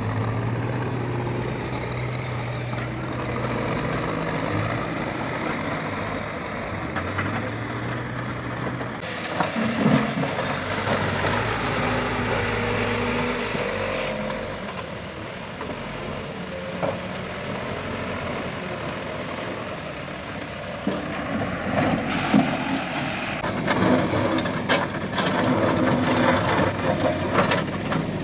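Backhoe loader diesel engines running under work, with a steady engine hum. Near the end, a run of knocks and scrapes as a backhoe bucket digs into soil and stones.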